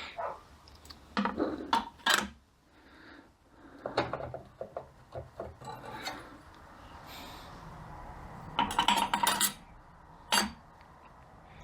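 Steel parts of a 42RE transmission's overdrive clutch pack clinking and knocking together as they are handled and fitted: several separate metallic knocks, then a quick rattling clatter about nine seconds in, and one last knock.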